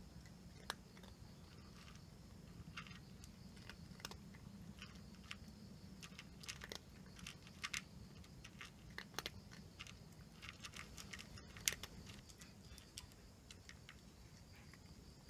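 Orange tabby cat chewing dry kibble: a run of faint, irregular crunches, busiest in the middle, with the loudest one a little before the end.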